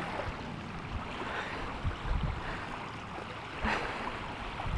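Small waves washing onto a sandy beach, a steady rushing hiss, with wind rumbling on the microphone.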